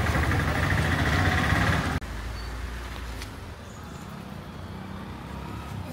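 Small motor scooter engine idling with a steady low hum. The sound cuts off abruptly about two seconds in, leaving quieter outdoor background with a faint hum and a single click.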